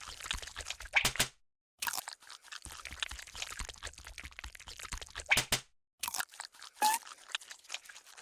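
Cartoon crunching and crackling sound effects, a dense run of sharp clicks broken by two short silences, with a short squeak about two-thirds of the way through.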